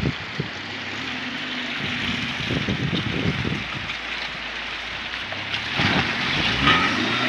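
Chevrolet Niva SUV's engine revving up and down as it ploughs through deep mud and floodwater, with water sloshing and splashing around the wheels, getting louder near the end.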